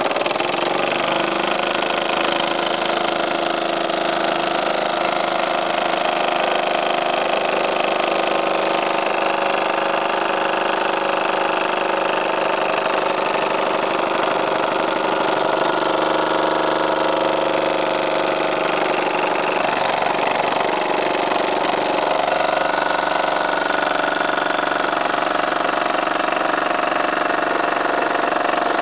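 Jensen live-steam model engine from the 1950s running steadily under steam, its flywheel spinning.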